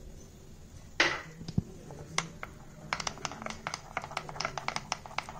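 A spoon stirring a ghee and cornflour paste in a bowl. There is one short scrape about a second in, then from about three seconds in a quick run of light clicks against the bowl.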